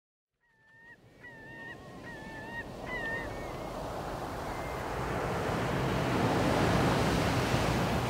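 Sea waves washing in a rising rush that grows louder toward the end. Over the first few seconds a bird gives a quick run of about six short calls.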